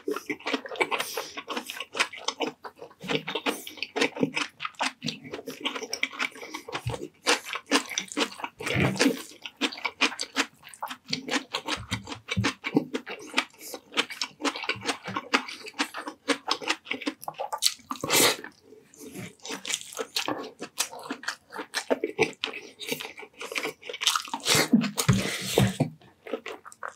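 Close-miked mukbang eating sounds: wet chewing, smacking and mouth clicks of someone eating pork in creamy coconut-milk sauce with rice, in a dense, irregular run of short smacks.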